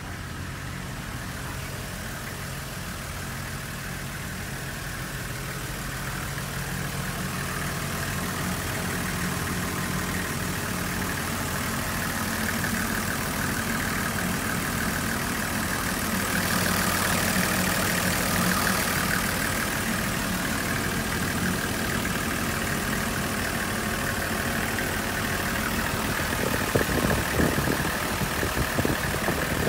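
Toyota Coaster's 1HZ 4.2-litre inline-six diesel idling steadily, heard through the open engine cover inside the cab, getting louder partway through. A few irregular knocks near the end.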